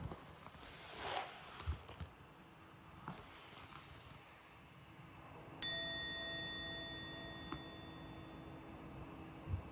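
A bright chime, a bell-like ding sound effect, strikes about halfway through and rings away over a couple of seconds. Under it, a faint steady buzz from a small battery-powered vibrating bug toy, switched on and shaking in place on carpet, where it cannot move.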